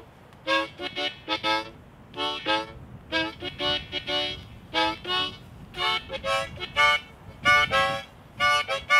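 Background music: a melody of short, separate pitched notes, several each second.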